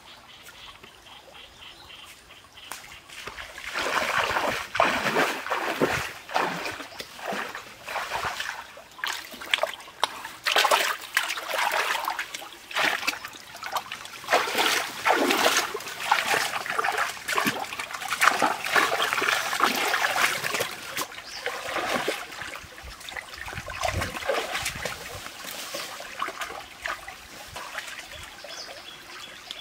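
Irregular splashing and sloshing of shallow stream water as a person wades and gropes with his hands along the bank, catching a catfish by hand. Quieter for the first few seconds, then the splashing comes in uneven bursts.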